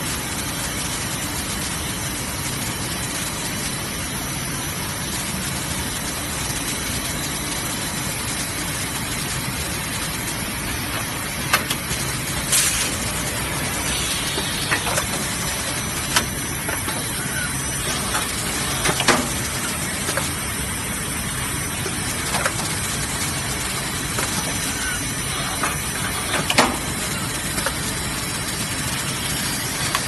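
Automatic cable coiling and tying machine running over a steady hum of factory noise. From about a third of the way in, its pneumatic cylinders give about seven short clicks and sharp hisses of air as the tying heads work.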